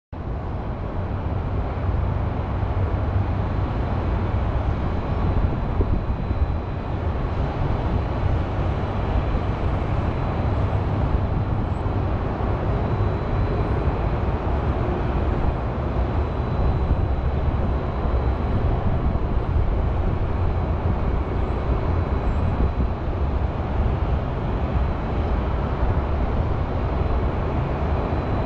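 Steady city ambience: the constant low hum of distant highway traffic, with no single vehicle or event standing out.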